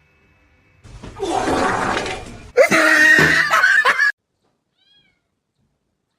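A cat yowling loudly for about three seconds: a hoarse first part, then a clearer, drawn-out meow that cuts off abruptly about four seconds in.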